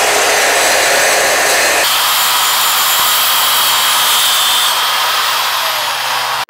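Bosch metal chop saw cutting through steel tubing held in its vise: a loud, steady grinding shriek of the blade in the metal. About two seconds in, the sound shifts and loses some of its low end.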